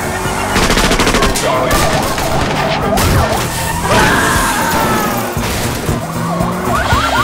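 Car-chase sound effects over music: police sirens wailing with gliding pitch, a burst of rapid clattering about a second in, and a skid about four seconds in.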